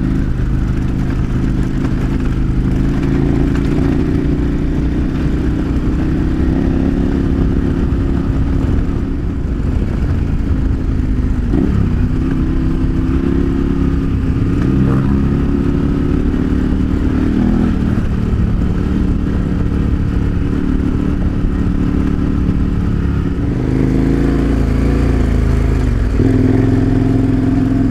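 KTM 1090 Adventure R's V-twin engine running under way. The engine note dips and rises a few times with the throttle, most clearly near the end.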